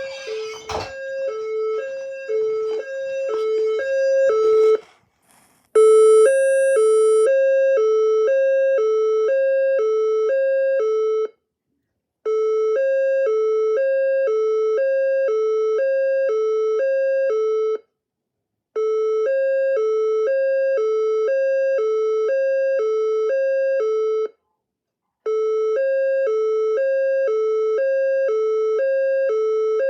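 Fire alarm system sounding a two-tone hi-lo alert signal, switching between a lower and a higher pitch a little more than twice a second. It comes in bursts of about five and a half seconds with roughly one-second pauses between them. Over the first few seconds it is mixed with other noise and then cuts out briefly.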